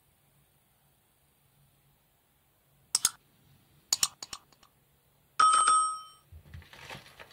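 A few sharp clicks, then a single bright metallic ding that rings out and fades within a second, followed by soft rustling near the end.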